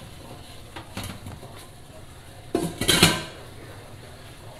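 A stainless steel Instant Pot inner pot is set back down into its cooker base with a metallic clatter about two and a half seconds in, after a few faint knocks.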